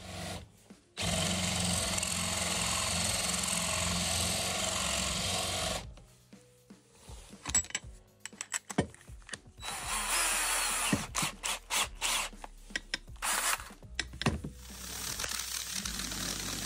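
A power tool runs steadily for about five seconds and stops. A run of irregular sharp clicks and scrapes from working a long steel bolt follows. Near the end a drill starts spinning the bolt in its chuck while abrasive paper is held against it to sand and polish it.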